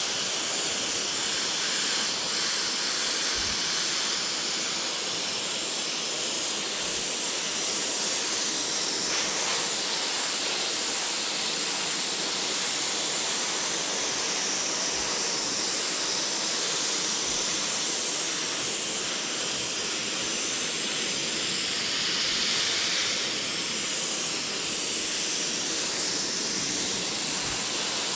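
Siphon-feed airbrush hissing steadily as it sprays black paint through a logo stencil.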